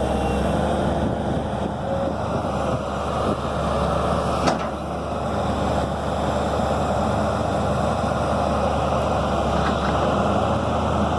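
Cat 320B excavator's six-cylinder diesel engine running steadily as the machine is worked, with a single knock about four and a half seconds in.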